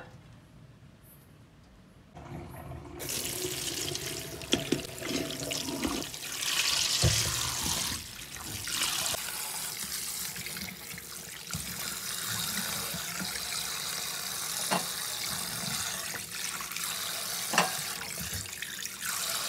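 Kitchen tap running into a stainless steel bowl of cut vegetables while hands rinse them. The water starts about two seconds in, with a few light knocks against the bowl.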